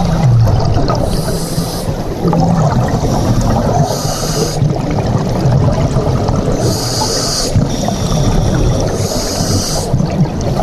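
A scuba diver breathing through a regulator: a short hiss with each inhale about every two and a half seconds, four times, with bubbling and a low rumble between the breaths.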